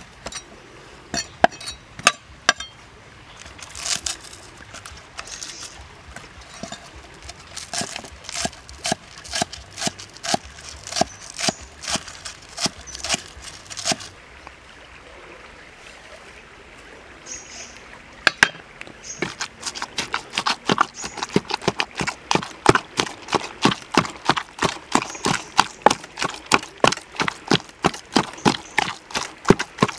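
Cleaver chopping green onions on a wooden chopping block, steady knocks about two a second. After a short pause, a pestle pounds minced pork and green onions in a wooden mortar, faster dull knocks about four a second.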